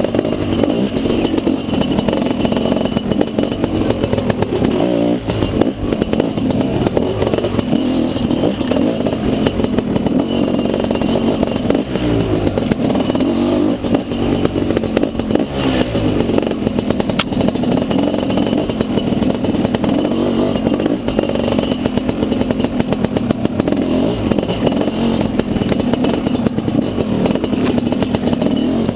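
Dirt bike engine running continuously while being ridden off-road, its revs repeatedly rising and falling with the throttle.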